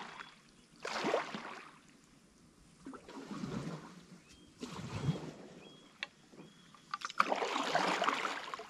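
Canoe paddle strokes in water: a swish and splash of the blade every second or two.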